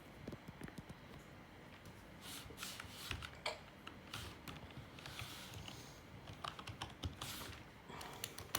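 Faint typing on a computer keyboard: irregular clusters of keystrokes and clicks.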